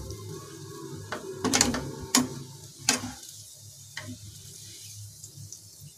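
Steel slotted skimmer scraping and clinking against a nonstick kadai while fried onions are lifted out of hot oil, with a few sharp clinks in the first three seconds and a fainter one later. Oil sizzles faintly underneath.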